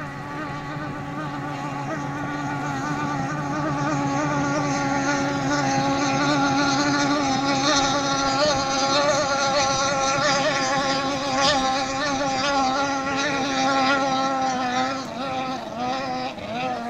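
Methanol-fuelled racing outboard motor on a hydroplane running hard at steady high revs. It grows louder over the first several seconds and drops off near the end.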